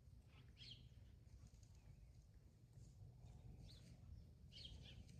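Faint songbird chirps: three short, high calls about half a second, three and a half and four and a half seconds in, over a steady low rumble of outdoor background noise.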